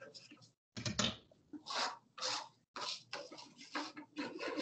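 Faint, irregular food-preparation handling noises, a series of short scrapes and rustles at a cutting board, cut off in between into near silence.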